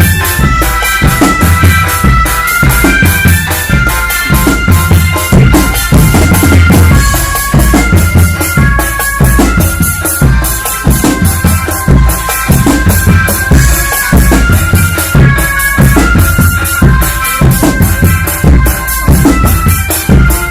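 Street drum band playing: bass and snare drums beat a dense, steady rhythm under a high, reedy melody of held notes that steps up and down.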